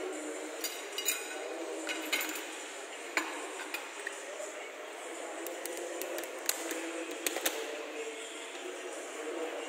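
Pool balls clacking: several sharp clicks of cue-tip and ball-on-ball strikes scattered through, over a steady background murmur.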